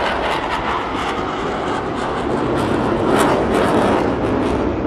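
Steady jet engine noise from a CF-18 Hornet fighter in flight, swelling slightly about three seconds in.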